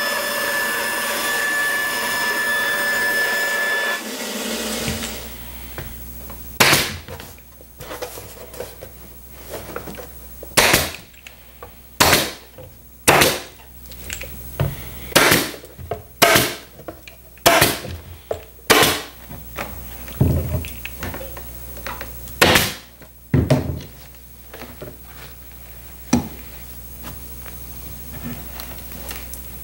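A band saw runs steadily with a thin high whine while cutting a board panel, and stops about four seconds in. Then comes a series of about a dozen sharp shots, one to two seconds apart, from a pneumatic upholstery stapler fastening the board to the wooden chair frame.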